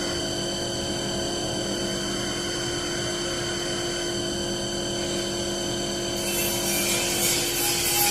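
CNC wood turning lathe running its automatic program: a steady machine hum made of several constant tones. About six seconds in, a louder hissing noise comes in as the tool works the wood.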